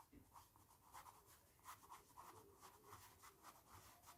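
Near silence with faint, short scratching strokes of something being written by hand.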